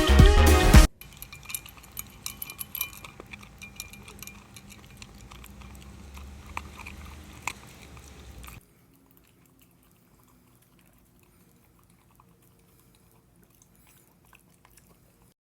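Background music cuts off about a second in, then a beagle chewing with faint, irregular wet clicks for several seconds before near silence.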